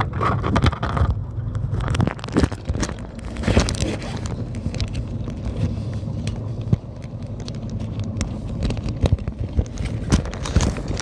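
Strong wind buffeting the phone's microphone as a steady low rumble, with frequent rubbing and knocking of the phone being handled.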